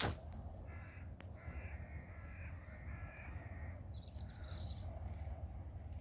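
Crows cawing, a run of several short calls in the first half, over a faint steady low rumble, with a brief high chirp about four seconds in.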